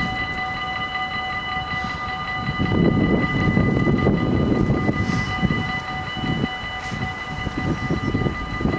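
Dutch level crossing's electric warning bells ringing continuously, a steady multi-tone ring, while the half-barriers come down to warn of an approaching train. Underneath is a gusty low rumble.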